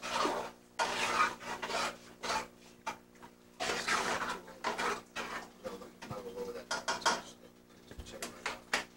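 A cooking utensil scraping and stirring tomato sauce in a metal stockpot, in irregular strokes.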